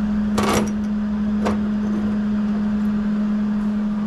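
A steady low machine hum, with two brief sharp knocks about half a second and a second and a half in.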